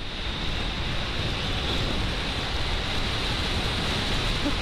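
Steady rush of wind over the microphone of a motorcycle ridden at highway speed, with road noise blended in and no clear engine note.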